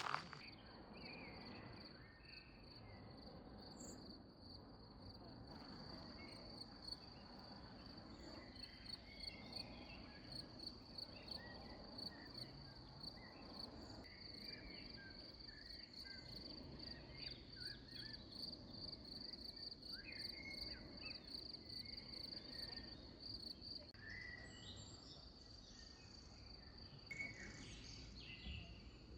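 A cricket trilling steadily in a high, continuous tone that drops away about three-quarters of the way through, with a few faint short chirps.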